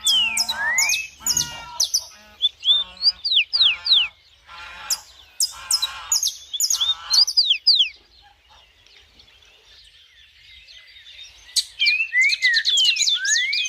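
Several birds calling and singing: repeated slurred whistled notes, sharp high chirps and short buzzy calls, a lull of a few seconds midway, then a quick run of chirping near the end.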